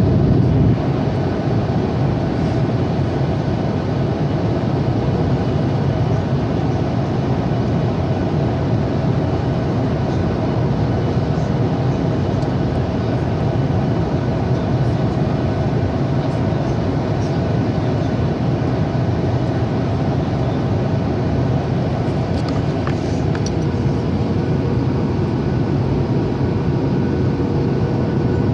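Boeing 737-800 cabin noise on approach: a steady, loud drone of the jet engines and rushing air with a low rumble and a few faint steady tones on top.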